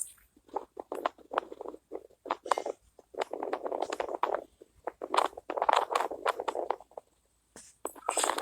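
Irregular crackling and rustling handling noise in bursts of quick clicks, with short pauses between them.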